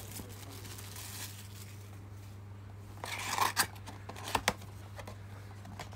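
Plastic shrink-wrap crinkling and tearing as it is pulled off a trading-card hobby box, loudest about three seconds in, followed by a couple of sharp clicks about a second later. A steady low hum runs underneath.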